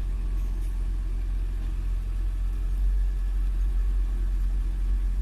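Heavy machinery's diesel engine running steadily and low, with no change in speed.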